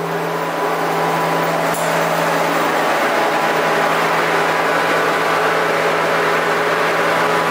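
Steady rushing of air from a running automotive paint booth's ventilation fan, drawn through the filter panels of the booth door, over a constant low hum. It grows a little louder in the first second, then holds even.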